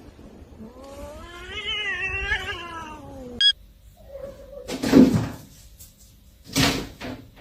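A cat yowling: one long, wavering call starting about half a second in, rising and then falling in pitch over about two and a half seconds. Two short noisy bursts follow later.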